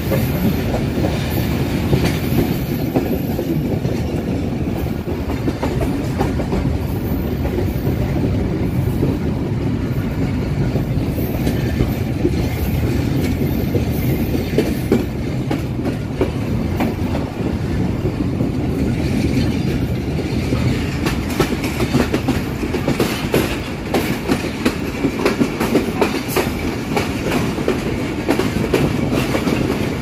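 Passenger train running at speed: a steady rumble of the coaches with the clickety-clack of wheels over rail joints, the clacks coming thicker in the second half. Heard from beside an open coach door.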